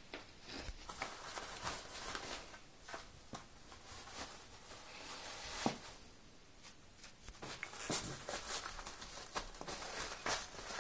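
Kittens scuffling in torn kitchen roll on carpet: irregular paper rustling and crinkling with soft pattering taps, busiest near the start and again over the last few seconds.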